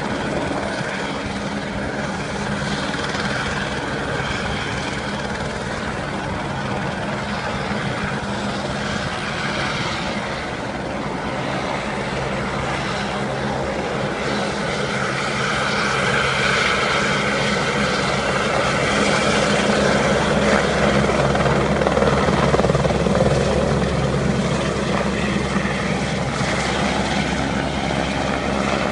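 Single-engine light helicopter running: a steady turbine whine with the beat of the rotor, which grows louder about halfway through as it lifts off and flies past.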